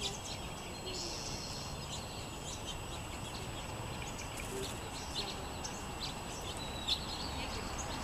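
Small songbirds chirping, many short high calls scattered and overlapping throughout, over a low steady background rumble.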